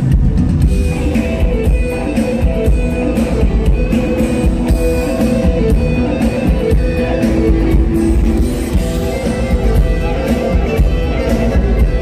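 Live rock band playing loudly: electric guitars through Fender and Marshall amplifiers over a drum kit.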